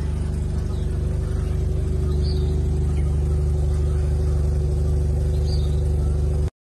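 Mazda RX-7 (FC) 13B twin-rotor rotary engine idling steadily with an even low exhaust rumble, no revving; it stops abruptly near the end.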